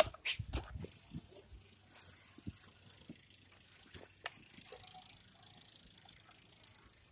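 Footsteps crunching and shuffling through deep, fresh snow in soft uneven patches, with a few sharp clicks from handling near the start.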